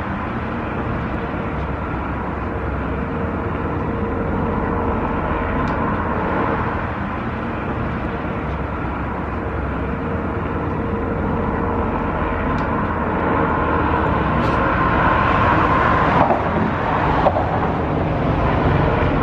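Steady traffic noise of vehicles crossing a highway bridge, a continuous rumble and tyre hum that grows a little louder near the end.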